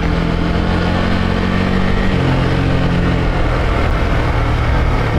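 Honda CG Titan 150 single-cylinder four-stroke engine running under way, carburettor open without air filter or intake hose. The engine note eases down slightly about two seconds in.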